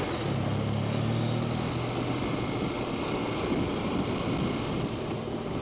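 Husqvarna Norden 901's parallel-twin engine running at low, steady revs on a slow ride over a rocky gravel track. About two seconds in, its steady hum fades under a rough, even rumble of riding noise.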